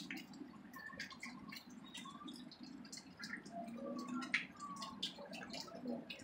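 A low, steady drone in the sky, which the uploader insists is not an airplane, with many short chirps and ticks over it.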